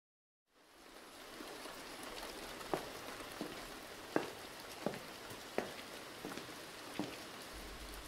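Rain ambience sound effect: steady rain that fades in after a short silence, with scattered louder drops. A low hum comes in near the end.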